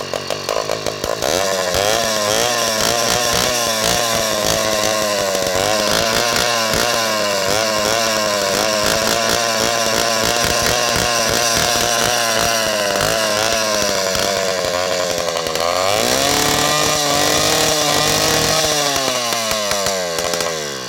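Single-cylinder two-stroke bicycle kit engine revved hard on a standing bike, its short stub exhaust pipe very loud (about 90 dB on a phone meter). The revs rise and waver, climb sharply higher about 16 seconds in, then drop away at the end.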